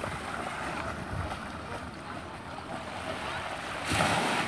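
Gentle surf washing on a sandy beach with wind buffeting the microphone; about four seconds in a small wave breaks on the shore with a louder rush of foam.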